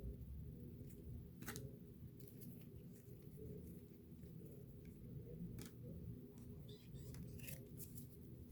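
Trading cards being handled: a few faint, sharp clicks and slides of card on card, spaced seconds apart, over a low steady hum.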